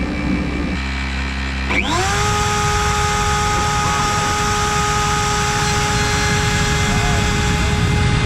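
CNC router spindle with an 8 mm cutter spinning up: a rising whine about two seconds in that settles at a steady pitch at 24,000 rpm, over a lower hum and the noise of the machine.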